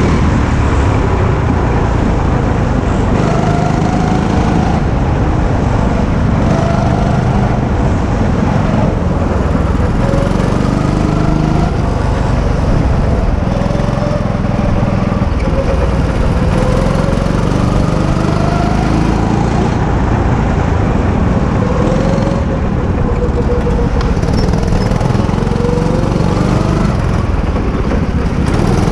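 Go-kart engine at full throttle, heard from on board the kart, its pitch rising again and again as it accelerates out of each corner and dropping back into the next.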